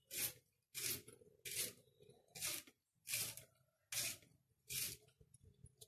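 Knife slicing thinly through a roll of taro (colocasia) leaves: about seven short, crisp cutting strokes, evenly spaced a little under a second apart, stopping near the end.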